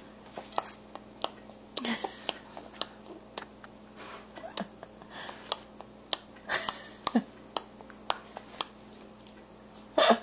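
A person's repeated mouth clicks and pops, short and sharp, coming irregularly about one or two a second, with the loudest pop near the end.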